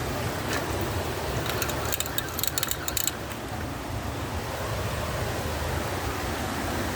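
Steady rushing noise of a river flowing, with a quick run of sharp clicks and taps about two seconds in.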